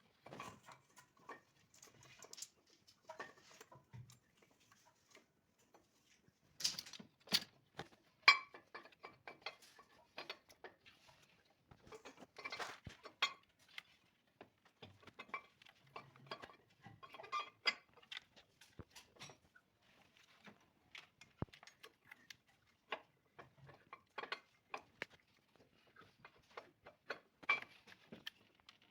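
Irregular metallic clicks, clinks and short scrapes of hand tools on metal parts, scattered unevenly, from cleaning and refitting an exhaust manifold.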